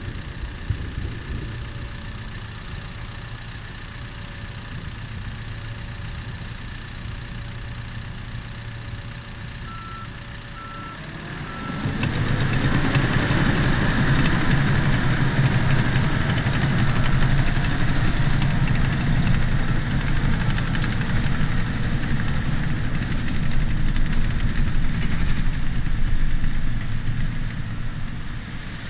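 Bulldozer diesel engine running steadily at low throttle, three short electronic beeps, then the engine opening up about twelve seconds in and running loud under load as the dozer works.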